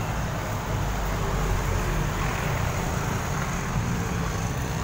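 Steady road traffic noise from cars, vans, trucks and motorcycles passing close by on a busy road, with a continuous low rumble of engines and tyres.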